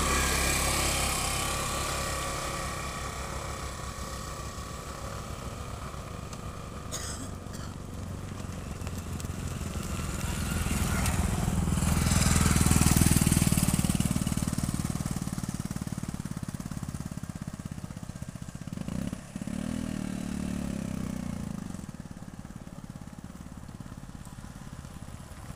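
Motorcycles and other road vehicles passing on a dirt road, their engines running and swelling in and out; the loudest pass-by, with a deep engine sound, comes about halfway through and then fades.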